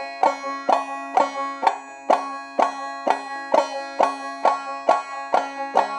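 Banjo clucks: percussive clawhammer downstrokes struck across the strings near the neck, repeated evenly about twice a second. Each one is a sharp, pinched pluck, with the strings ringing on between strikes.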